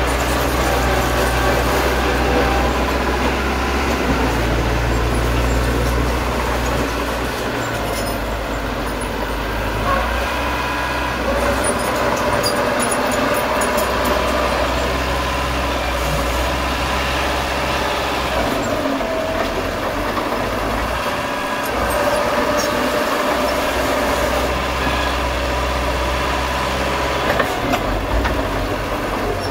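Small crawler bulldozer's diesel engine running steadily under load as it pushes dirt fill, with scattered short clinks from its steel tracks around the middle.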